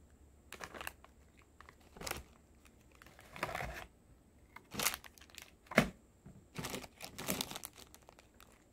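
Crinkling of a plastic snack bag being handled, in several separate rustles, with one sharp tap about two-thirds of the way through.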